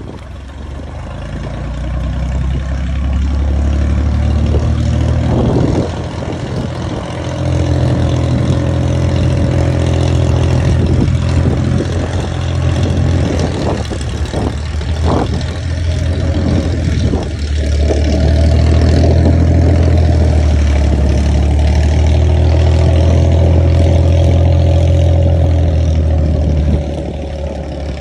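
Single-engine floatplane's propeller engine running as it taxis on the water. It gets louder for most of the last third as the plane powers up for its takeoff run, with a steady drone that rises slightly in pitch.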